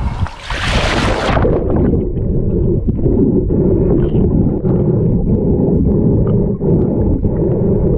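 Splash as the camera plunges below the sea surface about a second in, then muffled underwater sound: a steady low rumble with faint scattered clicks.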